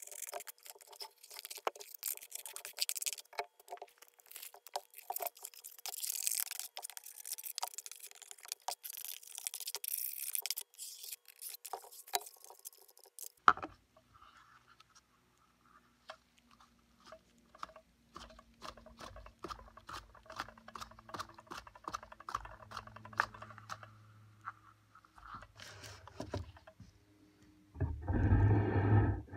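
Handling noise from gloved hands working in the plastic fan housing and impeller of a Stihl SH86C shredder vac: many small clicks, rubbing and scratchy scraping. The sound changes abruptly about halfway through, and a short, louder rumbling rub comes near the end.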